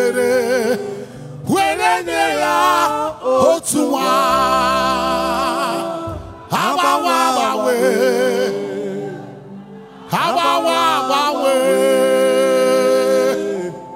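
A man singing a gospel praise song into a microphone, in long phrases of held, wavering notes with short breaks between them.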